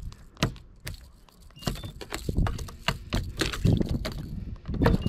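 Irregular knocks and splashing while a hooked fat snook is fought and brought in to the boat.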